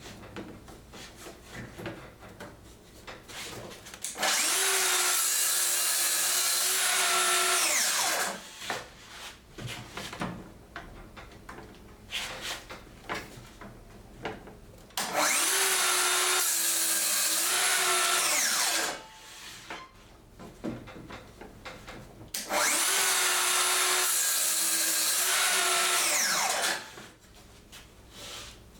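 Festool HKC 55 cordless track saw cutting wood three times. Each run lasts about four seconds: the blade spins up, cuts, then winds down. Clicks and knocks of the saw being handled on its guide rail come between the cuts.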